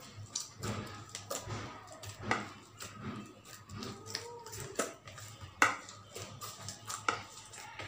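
Poori dough being kneaded by hand in a plastic bowl: irregular soft slaps and small clicks as the oiled dough is pressed and folded, one sharper click a little past halfway, over a steady low hum.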